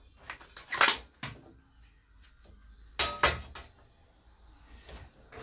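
Handling knocks and clatter: a power cord with its plug set down on a digital scale's stainless steel tray, with sharp knocks about a second in and a cluster of clatters about three seconds in.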